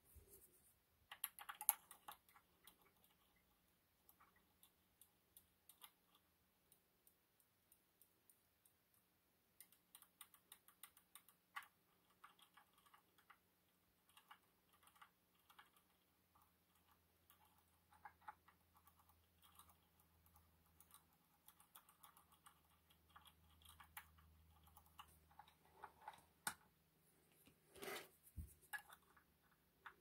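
Light metallic clicking and scraping of lock-picking tools working inside an EVVA MCS magnetic cylinder lock, picked up close by a contact microphone. The clicks come in irregular clusters, with the loudest near the start and towards the end.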